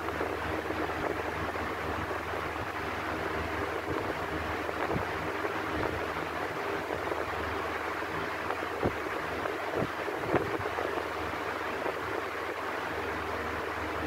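Electric fan running steadily: an even rush of air over a low motor hum, with a few faint knocks around two-thirds of the way through.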